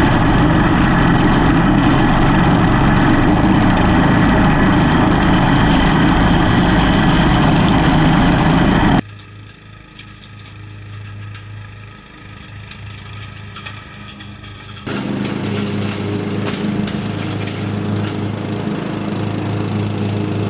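Cub Cadet XT1 Enduro riding mower's Briggs & Stratton engine running with the PTO engaged and the 42-inch deck's blades spinning, loud and close. About nine seconds in it drops suddenly to a fainter, more distant mowing sound, then grows louder again around fifteen seconds in.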